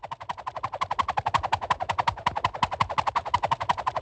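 Rapid, even clicking like a wood block, about ten clicks a second: a cartoon sound effect.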